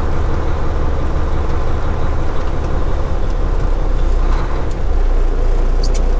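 Semi truck's diesel engine running steadily at low speed, heard from inside the cab, under a steady hiss of truck-wash water jets spraying.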